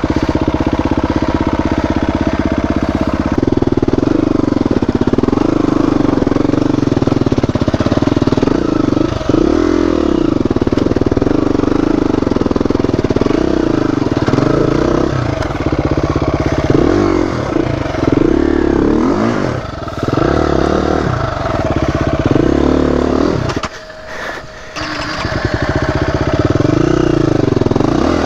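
Dirt bike engine revving up and down again and again under load on rough trail, easing off briefly near the end before picking up again.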